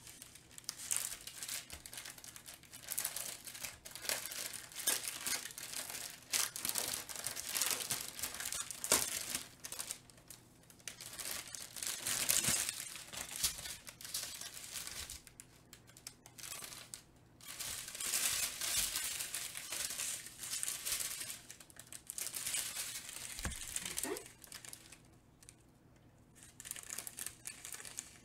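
Small plastic bags of diamond painting drills being handled and sorted, crinkling in irregular bursts with short pauses.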